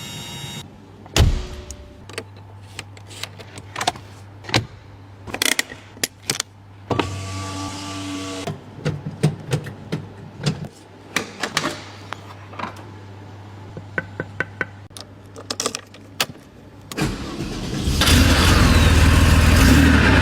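Porsche 911 964 Turbo's air-cooled turbocharged flat-six: a run of clicks and knocks over a low hum, then the engine starts about three seconds before the end and runs loud.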